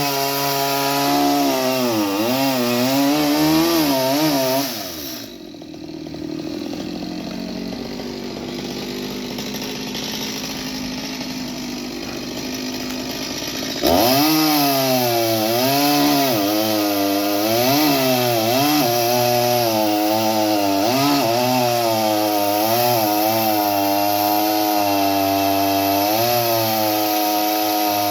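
Chainsaw cutting wood, its engine pitch sagging and recovering as it works under load. About five seconds in it drops back to a quieter, steady idle. Midway through it revs up again and goes on cutting.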